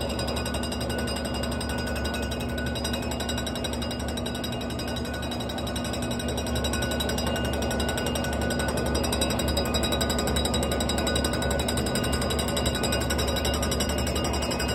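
Drinking glasses rattling rapidly against one another on a vibrating surface: a fast, continuous glassy chatter like a jackhammer, over a steady low hum, growing a little louder about six seconds in.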